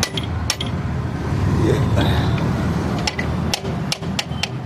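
Sharp metallic knocks and clicks from tools working on a motorcycle wheel during a tyre change, two early and a quick run of them near the end, over a steady low engine rumble.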